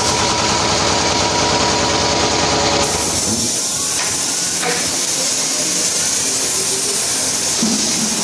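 Vertical packaging machine running: a fast, rhythmic mechanical clatter that about three seconds in changes suddenly to a steady hiss.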